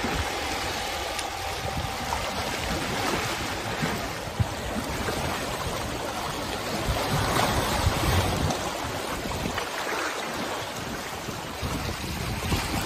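Small sea waves washing and lapping over shoreline rocks, with wind buffeting the microphone in gusts. The faint steady drone of a light aircraft's engine fades out in the first second.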